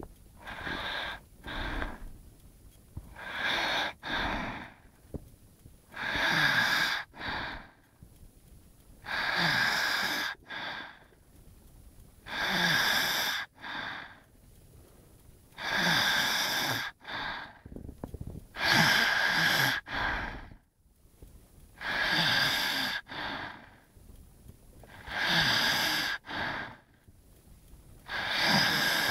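Snoring in sleep: a loud, rasping snore with a low wavering pitch about every three seconds, each followed by a shorter, quieter breath.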